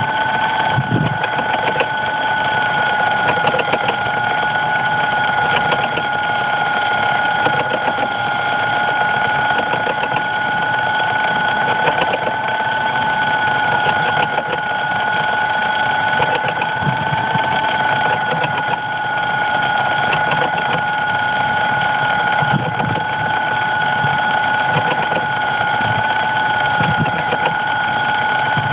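Crashed DJI Phantom quadcopter's motors running at an unchanging pitch: a steady, even whine with faint irregular ticking.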